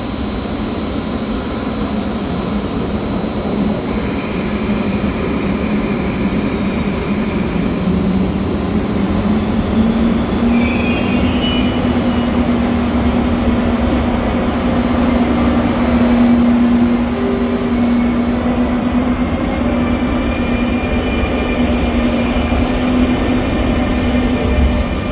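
Train moving slowly through a station: a steady rumble with a high whine, brief wheel squeals about ten seconds in, and a low steady hum from then on.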